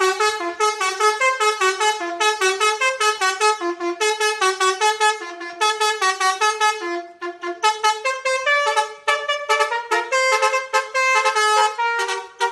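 Basuri telolet horn playing a fast tune of short, changing horn notes, with a brief break about seven seconds in.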